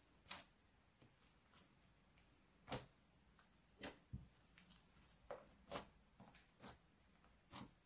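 White glitter slime being squeezed and folded by hand, giving about nine sharp, irregular clicks and pops as trapped air bursts from it.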